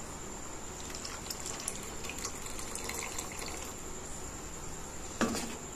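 A pot of bitter gourd and tamarind gravy simmering as it comes up to the boil, bubbling with small scattered pops.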